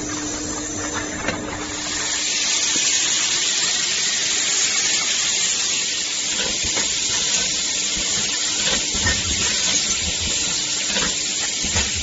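Automatic aerosol can filling and crimping machine running, with a steady compressed-air hiss from its pneumatic system that grows louder about two seconds in. Light clicks and knocks of the mechanism and the aluminium cans sound on top.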